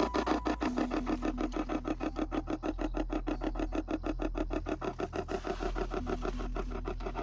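Spirit box (ghost box) radio scanner sweeping through stations: rapid, even chopping bursts of radio static, about six a second, with brief snatches of steady tone.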